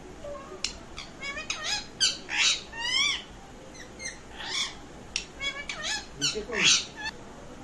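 Pet parrot giving a rapid run of squawks, chirps and short whistled calls that swoop up and down in pitch, with the loudest squawks about two to three seconds in and again near the end.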